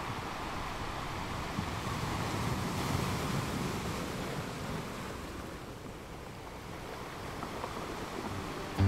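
Underwater sea ambience: a steady hiss and low rumble of the water, swelling slightly a couple of seconds in and easing off past the middle.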